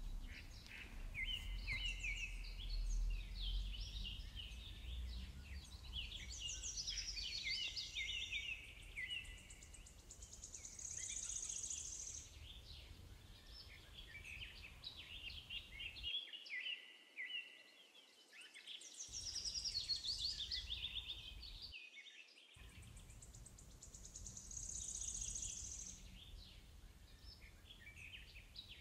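Birds singing: many overlapping chirps and trills, with a faint low rumble underneath.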